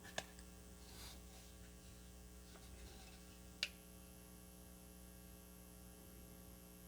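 Near silence with a low, steady mains hum. Two faint clicks, about a fifth of a second in and again about three and a half seconds in; with the second click a faint high-pitched whine sets in and stays.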